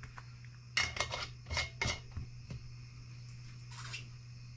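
A few small sharp clicks and light rattles of small objects being handled on a workbench, then a short rustle near the end, over a steady low hum.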